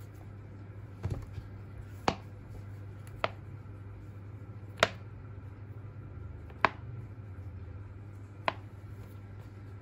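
Handling a folio tablet case: six sharp clicks and taps, one to two seconds apart, as the fabric cover flap is folded back and opened against the iPad, over a steady low hum.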